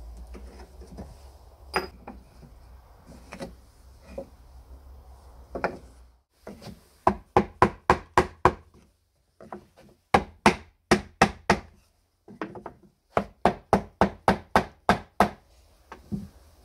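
Hammer tapping a solid oak vise block into place on a carpenter's bench, in three quick runs of sharp strikes, about five a second, with short pauses between them. Before that, a few scattered knocks of wooden parts being handled.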